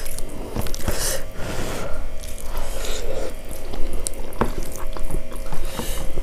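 Close-miked hand-eating sounds: soft, mushy moong dal khichuri squished and mixed by fingers on steel plates and chewed, with irregular wet smacks and small clicks.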